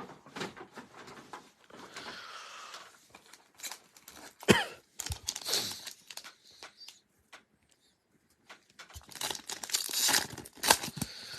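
Plastic wrapping on a blaster box of football trading cards and its card packs being torn open and crinkled by hand, in irregular rustles with a few sharp crackles, busiest near the middle and again toward the end.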